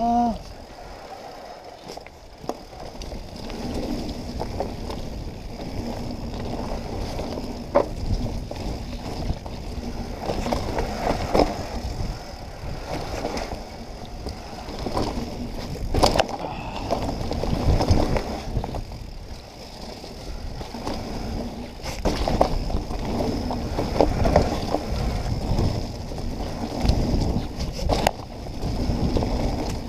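Mountain bike ridden fast down a dirt forest singletrack: tyres rumbling over the dirt, with frequent sharp knocks and rattles from the bike over bumps, the sharpest about halfway through and twice more toward the end.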